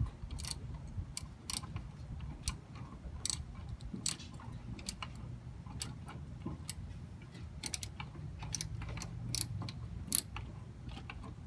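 Hand ratchet wrench clicking as a master cylinder mounting nut is backed off: sharp separate clicks at an uneven pace, about one or two a second, over a faint low hum.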